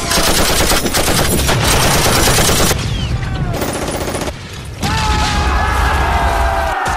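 Dense, rapid machine-gun fire sound effects, thinning out after about two and a half seconds. About five seconds in, a long held wavering sound begins.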